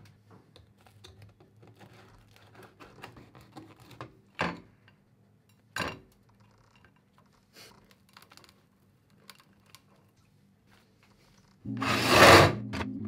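A knife sawing through the crusty shell of a homemade toasted bread roll, a run of small crackling crunches, then two sharper knocks on a ceramic plate. Near the end a loud burst of noise comes in as music starts.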